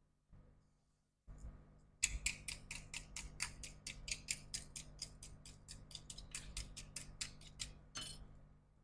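A rapid, even run of sharp clicks, about five a second, from about two seconds in until near the end, over a low steady hum that starts just over a second in.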